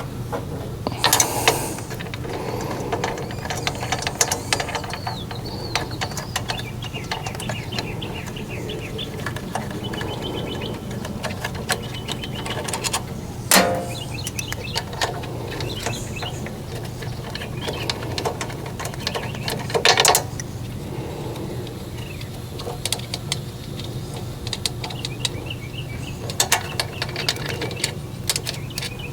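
Hand-tool work on a generator's engine: scattered small metal clicks and clanks, with three sharper knocks about a second in, around halfway and about two-thirds through, over a steady low hum. Birds chirp faintly in the background.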